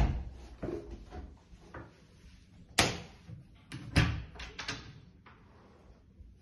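Interior door with a chrome lever handle being opened: a sharp latch click about three seconds in, then a quick cluster of clicks and knocks as the handle is worked and the door swings open. A few fainter knocks come before it.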